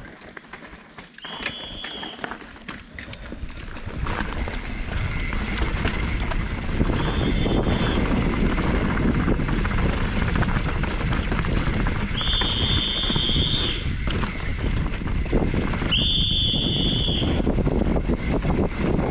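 Downhill mountain bike descending a dirt trail, heard from a helmet camera: the rush of wind on the microphone and the tyres rolling over dirt, loud from about four seconds in, with several short high-pitched squeals along the way.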